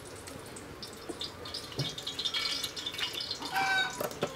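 Cooking oil poured from a plastic jug into a metal wok, trickling and splashing. A short chicken cluck comes near the end, followed by a sharp knock or two.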